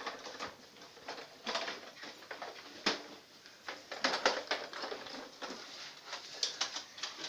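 Irregular plastic clicks and rustling from a Nerf Mega Mastodon blaster's parts being handled and fitted.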